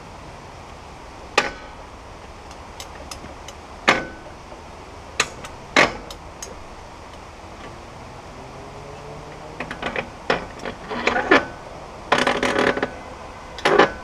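Irregular sharp metal clanks and knocks, some with a brief ring, as steel parts on a sawmill frame are handled, with a flurry of knocks and a short rattling run near the end.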